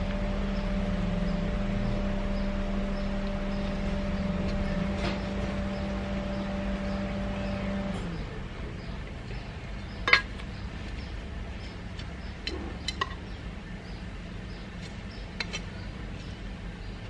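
A vehicle engine runs with a steady hum that cuts off about eight seconds in. Then a metal hand trowel digging into gritty potting mix gives a few sharp clinks, the loudest about ten seconds in.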